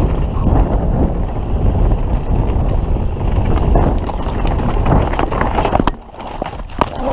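Canyon Spectral full-suspension mountain bike running fast down a rough dirt trail: a steady rush of wind and tyre noise with rattling over the ground. Near the end comes a sharp impact as the bike goes down in a crash, the back end sliding out as the rider felt it, and the rushing stops abruptly.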